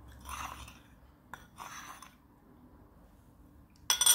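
A metal tablespoon scraping through cocoa powder in two soft swishes, then a sharp ringing clink of the spoon against the mixing bowl near the end.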